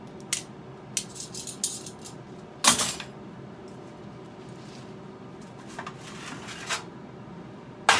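Metal broiler pan clattering as steaks are turned over on it by hand. Light clicks and knocks are broken by a loud metallic clank about two and a half seconds in, and another sharp clank near the end.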